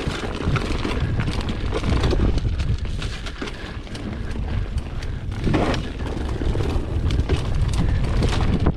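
Mountain bike running down a rough dirt trail: wind buffeting the microphone as a steady rumble, with tyres crunching over loose ground and the bike rattling in many short clicks and knocks.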